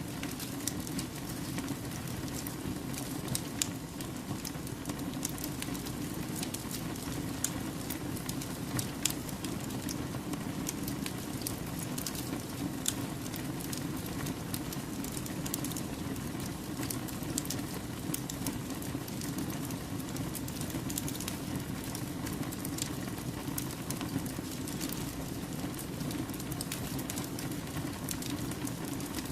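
Wood campfire burning: a steady low rush of flames with frequent small crackles and a few sharper pops from the burning logs.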